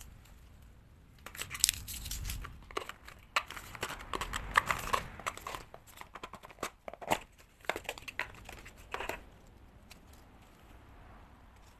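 Packaging being handled during an album and photocard unboxing: a run of crinkling, rustling and small sharp clicks for about eight seconds, stopping near the end.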